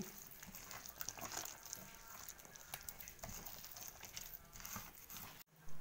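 A bare hand squishing raw eggs into creamed butter and sugar in a glazed clay bowl: faint wet squelching with small clicks. The sound cuts off abruptly near the end.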